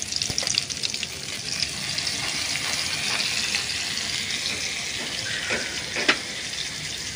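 Par-steamed cauliflower florets sizzling steadily as they fry in hot oil in a kadai, with a few clicks and knocks, the loudest about six seconds in.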